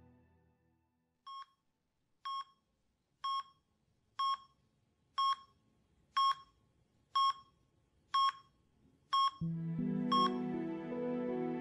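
Bedside patient monitor beeping, a short high beep about once a second, ten in all. Soft music comes in near the end.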